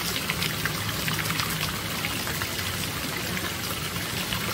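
Thin fountain jets of water falling and splashing steadily onto the surface of a swimming pool.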